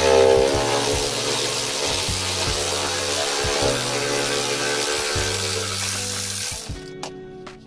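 Cordless ratchet running steadily, spinning a nut off a battery hold-down rod; it stops shortly before the end.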